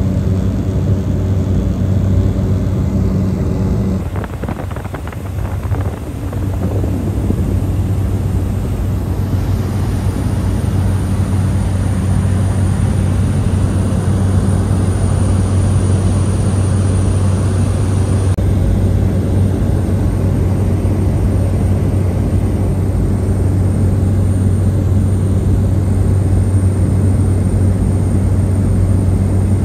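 Small high-wing propeller plane's engine and propeller droning steadily, heard from inside the cabin, with a brief drop in level about four to six seconds in.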